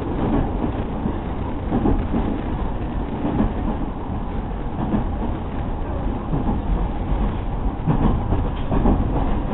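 JR 209 series 2000-subseries electric train running at speed, heard from inside the passenger car: a steady rumble of wheels on the rails, with a few slightly louder moments.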